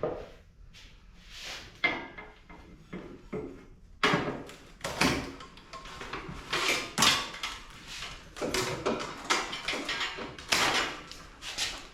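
Irregular clanks, scrapes and rattles of scrap metal being handled and pulled apart, as from taking down an old air-conditioning unit. It gets busier and louder about four seconds in.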